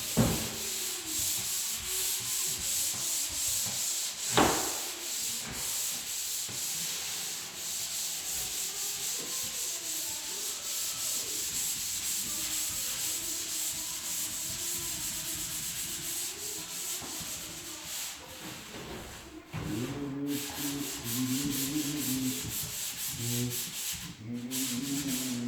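Hand sanding of dried drywall joint compound along an inside angle, a sanding pad rubbing in quick back-and-forth strokes. A single knock about four seconds in, and a squeaky tone joins the strokes near the end.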